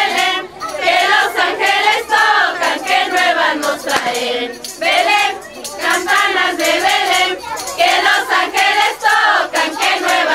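A group of women singing together as a choir, their voices continuing without a break.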